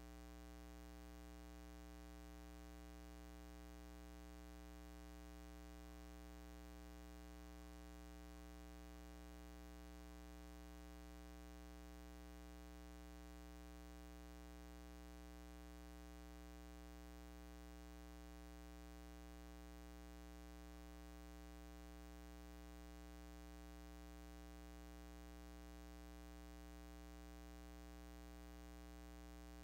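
Near silence: a steady low hum, with very faint traces of a woman singing a hymn that come and go.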